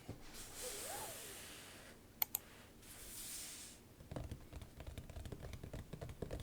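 Soft hissing handling sounds with two sharp clicks, then typing on a mechanical keyboard from about four seconds in, a quick run of keystroke clacks.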